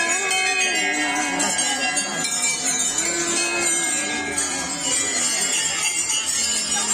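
Many hanging metal temple bells ringing over and over as passers-by strike them, their tones overlapping into a continuous jangle, with crowd voices underneath.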